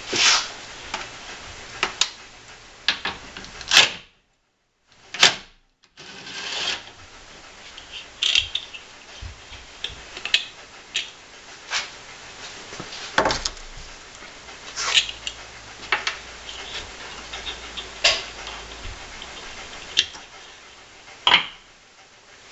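A stock disc car horn and its metal bracket being unbolted and lifted out from behind the grille by hand: scattered metal clinks, clicks and knocks over a steady hiss, broken by two short silences about four and six seconds in.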